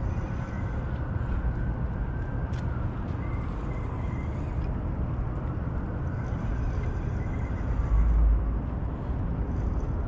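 Steady outdoor rumble with wind buffeting the microphone, a stronger gust about eight seconds in, and faint rising and falling hums.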